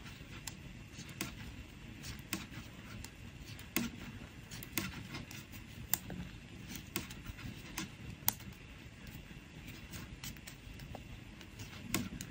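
Knitting needles clicking faintly and irregularly, about one or two small taps a second, as stitches are worked onto a double-pointed needle.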